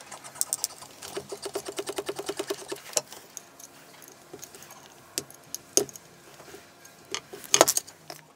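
Small metal clicks and knocks of hand tools and hardware as a CNC gantry plate is fitted to its aluminium rail and its screws are turned with a hex key: a rapid even run of clicks, about ten a second, for about two seconds, then scattered single clicks and knocks.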